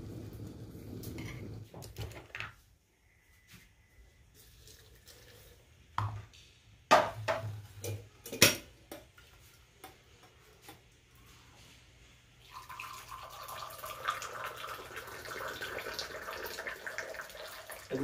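Cookware being handled: a few sharp knocks of metal pans and utensils, then a steady hiss that starts about two-thirds of the way in.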